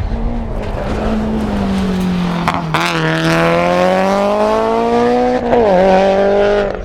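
Mitsubishi Lancer Evolution VI GSR's turbocharged four-cylinder engine pulling hard: its pitch sags slightly, a sharp crack comes near three seconds in, then the pitch climbs steadily through a gear, drops quickly with an upshift about five and a half seconds in, and climbs again.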